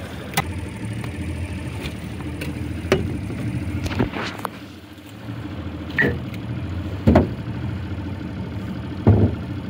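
Outboard motor idling steadily on a small aluminum boat, briefly quieter about five seconds in, with about six sharp knocks and clatter as a hook and net rope are handled against the boat.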